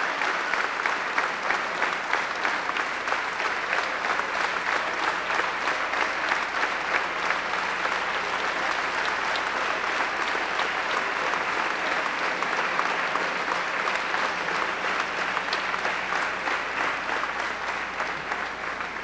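Audience applauding, a dense, steady clapping that starts to die away near the end.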